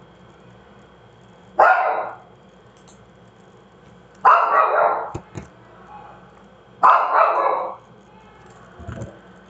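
A dog barking three loud times, about two and a half seconds apart.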